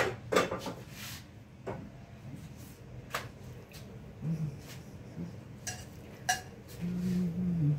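Kitchen utensils clinking and knocking: a spatula and a bowl striking a frying pan on the stove, about half a dozen separate clinks and knocks.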